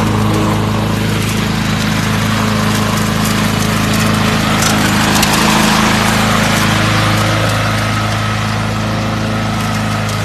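Honda walk-behind petrol lawn mower's four-stroke engine running steadily at a constant speed while the mower cuts grass.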